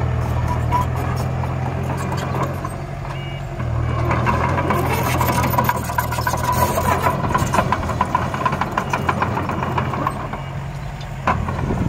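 A work machine's engine running steadily, with a dense clatter of clicks and scrapes in the middle stretch.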